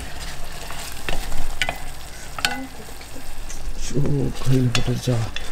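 Spatula stirring and scraping cooked wheat with onion and capsicum in a stainless steel saucepan: scattered clicks and scrapes of the spatula against the pan over a light sizzle. A voice comes in over the stirring about four seconds in.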